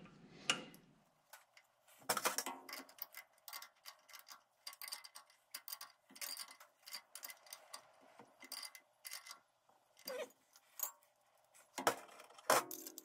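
Scattered small metallic clicks and ticks of hands threading a brass hose fitting into the lathe's coolant tap block, with a few louder knocks near the start and near the end.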